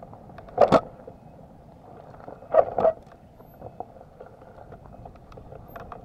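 Vehicle rolling over a loose gravel road: a steady rumble of tyres on stones, with two loud jolts, one a little under a second in and one near three seconds in, plus a few smaller knocks.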